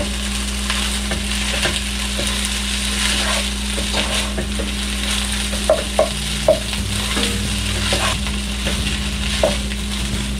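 Fried rice sizzling in a hot nonstick pan while a plastic spatula stirs and folds it, scraping and knocking against the pan, with a few sharper knocks a little past halfway.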